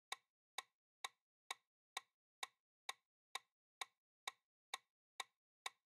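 Countdown-timer clock ticking sound effect: short, even ticks at about two a second.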